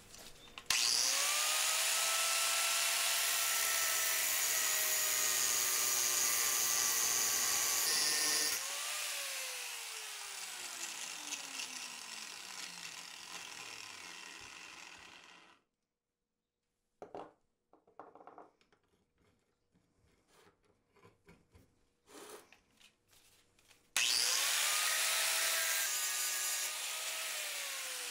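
Bosch PWS 6-115 angle grinder starting up to a loud, steady high whine. It runs for about seven seconds, then is switched off, and its pitch falls as the disc spins down over several seconds. After a few light clicks it starts up again near the end and is switched off just before the end.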